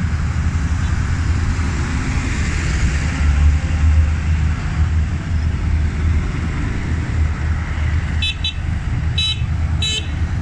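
Large modern farm tractors drive past one after another, their diesel engines running low and steady, loudest about a third of the way in as one passes close. Near the end a horn toots several short times.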